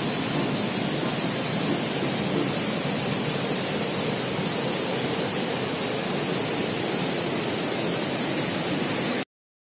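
Steady, even rush of flowing water, cut off abruptly near the end.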